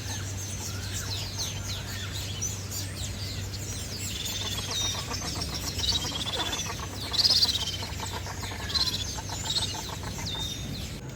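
Many birds chirping and squawking together in quick, overlapping calls, loudest about seven seconds in, over a low steady hum.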